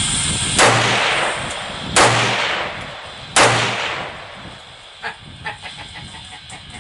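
Three single shots from an AK-pattern rifle in 7.62x39mm, evenly spaced about a second and a half apart, each trailing off in a long echo. A few faint clicks follow.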